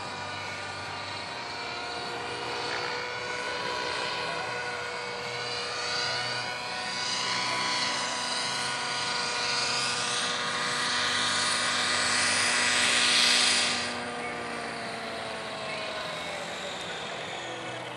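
Align T-Rex 700 radio-controlled helicopter in flight: a steady whine of its drive and rotor with a whooshing blade noise that builds and cuts off sharply about 14 seconds in. After it sets down, the whine slides lower as the rotor head spools down.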